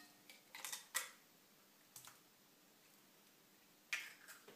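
A hen's egg being broken open by hand over a glass bowl: a few soft crackles and clicks of eggshell about a second in, a long quiet stretch, then another couple of small clicks from the shell near the end.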